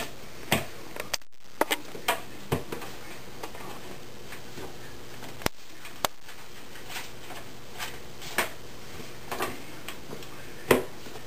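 Irregular light taps, clicks and soft knocks, about a dozen, scattered unevenly and loudest near the end, over a faint steady hum.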